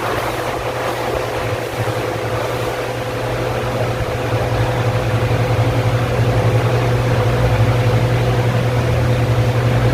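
Arno 40 cm wall fan running: a steady motor hum with a thin whine over it and the rush of air from the blades. It grows a little louder about halfway through.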